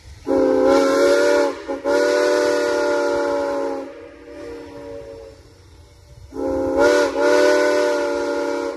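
A steam locomotive blowing the Lancaster, Oxford and Southern 'ghost whistle' for a grade crossing: two long blasts with a brief break between them, then a third long blast begins a few seconds later, each with a rush of steam.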